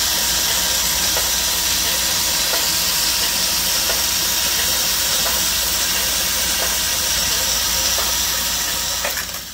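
Vintage circular sock-knitting machine running at speed, its needles and cams making a steady, high hissing whir with a few faint ticks.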